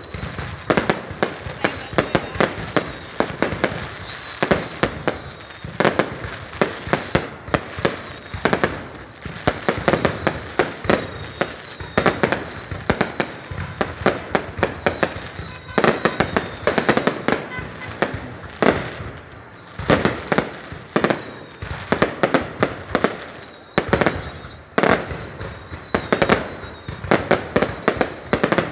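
Fireworks going off in a continuous barrage of sharp bangs, many close together, with short falling whistles repeating about once a second.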